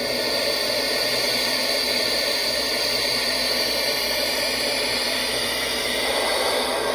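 Steam hissing steadily out around the cylinders of a KM1 gauge 1 live-steam model of a DB BR 01.10 locomotive. The hiss comes up at the start and then holds even, with no chuffing beat.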